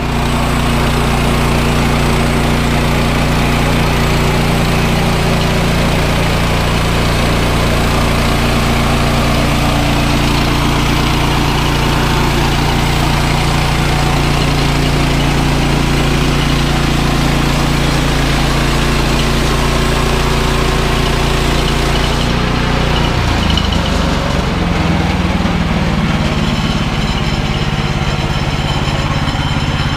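Woodland Mills HM130 band sawmill's gasoline engine running steadily while the blade cuts through a log; a little over 20 seconds in, the engine note shifts and settles into a different steady tone.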